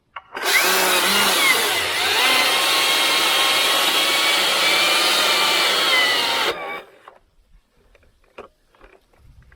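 Husqvarna T542i battery-powered top-handle chainsaw running at full speed through the trunk for about six seconds while making a face cut. It gives a high electric whine that wavers in pitch as the chain loads up, and stops abruptly. A few faint knocks follow.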